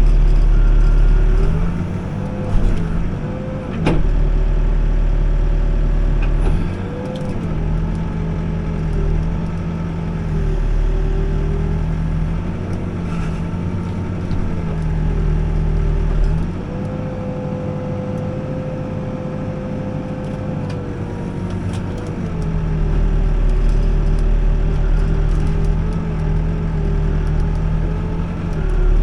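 Backhoe's diesel engine running under load while digging, its pitch dipping and rising every few seconds as the work changes; a single sharp knock about four seconds in.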